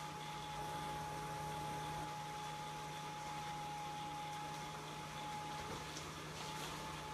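Steady hum of a running electric fan, with a constant high tone over it. A few faint light clicks come about six seconds in.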